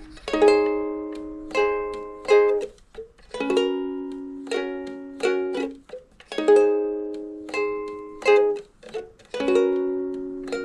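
Chords strummed on a plucked string instrument, struck about once a second and left to ring and fade, in a three-chord pattern that repeats about every three seconds.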